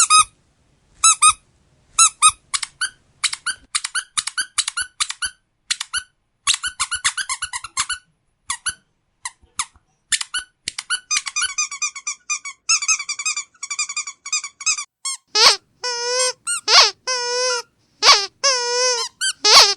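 Squeaky dog toy squeezed over and over: short high squeaks, single and in quick bursts, then fast runs. About fifteen seconds in they give way to longer, lower, louder squeaks that waver in pitch.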